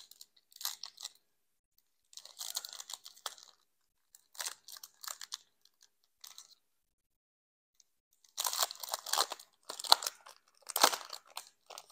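Foil wrapper of a Pokémon booster pack crinkling and tearing as it is opened by hand, in short irregular bursts. The crinkling grows louder and denser in the last few seconds as the cards are slid out of the torn wrapper.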